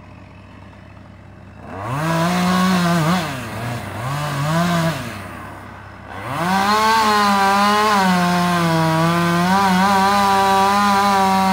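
Husqvarna 550 XP two-stroke chainsaw revving up twice in short blips, then held at high speed for several seconds with its pitch wavering and sagging slightly under the load of a cut, before dropping back near the end.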